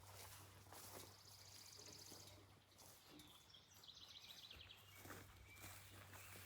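Near silence outdoors, with faint bird calls: a rapid high trill about a second in and another trill around four seconds in.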